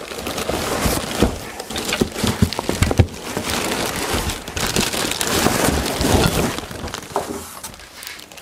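Plastic film wrapping crinkling and rustling as a packed machine is handled in its cardboard box and lifted out, with a few knocks along the way; the rustling thins out near the end.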